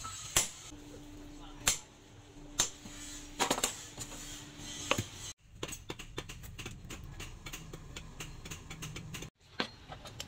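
Hammer blows on a handled chisel held against red-hot rebar on an anvil: about five single strikes, roughly one a second. After an abrupt cut comes faint quick clicking for about four seconds, then one more strike near the end.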